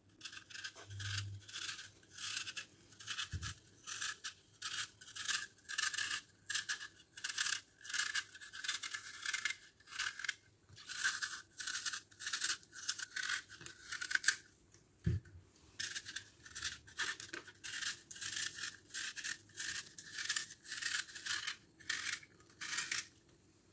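Small kitchen knife peeling whole apples, the blade scraping through the skin in short strokes, two or three a second with brief pauses. A single light knock about halfway through.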